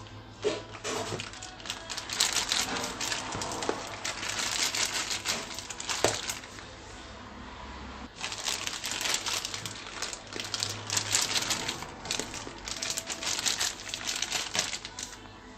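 Disposable plastic piping bags crinkling and rustling as they are handled and filled with whipped cream. The crinkling comes in two long stretches, with a few sharp clicks among it.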